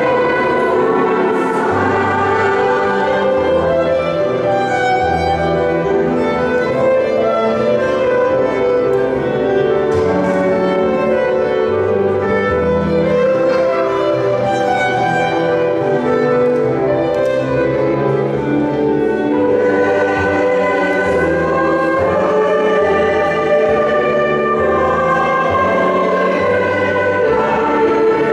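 A mixed choir and a small ensemble of violins, keyboard and clarinet performing a classical piece, with sustained string and vocal lines.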